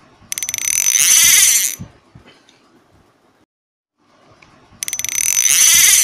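A mechanical ratcheting whir sound effect, played twice: each time a sudden run of rapid clicks turns into a loud high hiss for about a second and a half, then fades with a few faint low thumps.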